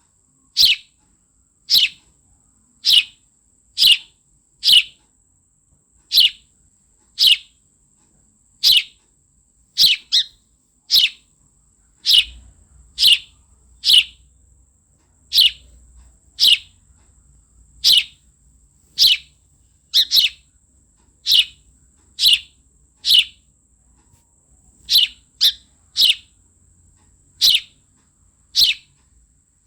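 House sparrow chirping: single short, high chirps, each dropping in pitch, about one a second and now and then two in quick succession.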